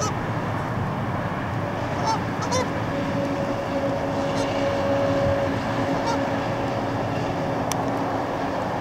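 Boeing 737-400's CFM56 jet engines at takeoff thrust during the takeoff roll and rotation: a steady roar, with a steady droning tone held through the middle.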